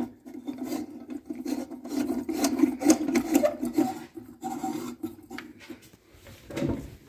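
Scraping and rubbing, a continuous grating of many small strokes, as the bulb is screwed back into the socket of a GE 201-SA streetlight and hands rub against its ribbed glass refractor.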